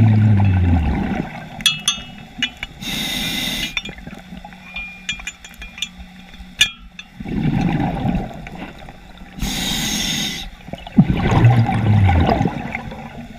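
Scuba diver breathing through a regulator underwater: two short hissing inhales, and exhales that come out as low rumbling bursts of bubbles. Between breaths, clusters of sharp metallic clicks and clinks as the anchor line's snap hook and the grapnel anchor are handled.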